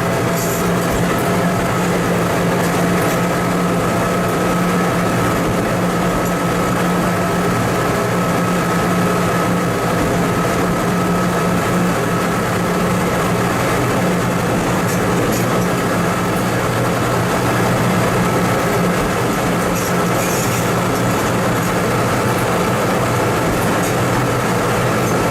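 Engine of a TMC200 snow-removal motor car running steadily, a constant low drone with a fainter high whine over it.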